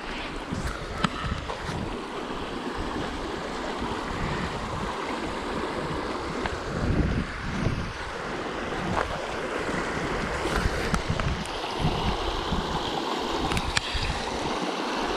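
Shallow creek rushing steadily over rocks in small rapids, with wind buffeting the microphone in low gusts and a few sharp clicks.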